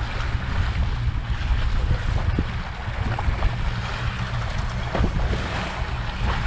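Wind buffeting the microphone and waves slapping the hull of a trolling boat, over a steady low engine rumble.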